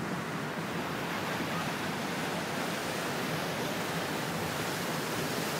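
Steady rushing of wind and water on the open deck of a moving river cruise ship.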